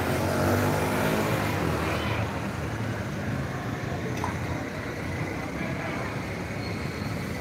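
Street traffic heard from high above: a small motor vehicle's engine running, strongest in the first couple of seconds and then fading, over a steady street din.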